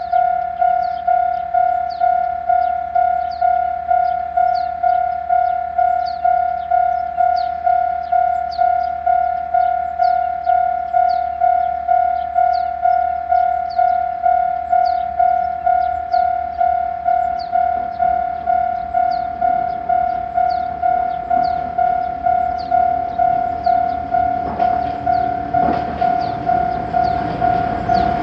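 Japanese railway level-crossing alarm, an unusual-sounding electronic bell, ringing steadily about twice a second. A train is heard approaching from about two-thirds through, growing loud near the end.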